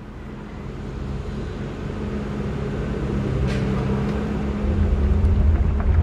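Concrete mixer truck's engine running with a steady hum, fading up and growing louder; a heavier, deeper rumble sets in near the end as concrete runs down the truck's chute.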